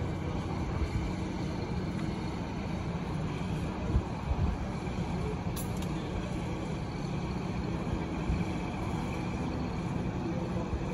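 Steady low outdoor rumble and hiss, with a few soft thumps about four seconds in and a brief high tick about halfway.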